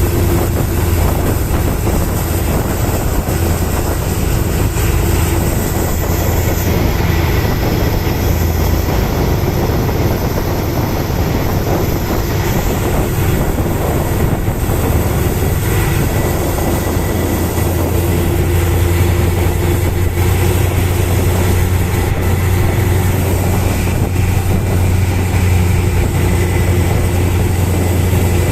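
Steady low drone of the motor ship KM Mandala Sena's engine under way, with an even rushing noise over it throughout.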